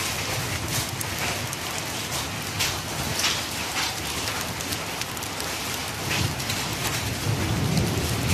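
The first drops of a rain shower falling, spattering onto a flat concrete rooftop as a steady hiss with frequent sharper splats. A low rumble swells near the end.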